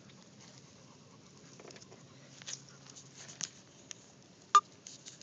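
Light rustling and scattered small clicks from a pitbull puppy in a plastic cone collar moving on grass and being handled, with one short, sharp click about four and a half seconds in, the loudest sound.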